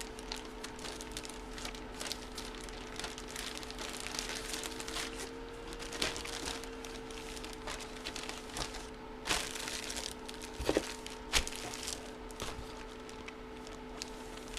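Plastic card packaging being handled: light crinkling and rustling with scattered small clicks, a few louder rustles in the second half, over a steady faint hum.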